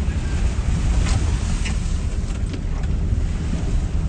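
Pickup truck crawling over a wet, rough gravel trail, heard from inside the cab: a steady low rumble of engine and tyres, with a few sharp ticks and knocks about a second to two seconds in.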